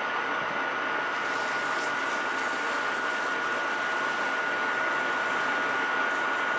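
Metal lathe running at a steady speed with a constant high whine, while emery cloth is held against the threaded part spinning in the chuck to polish the thread.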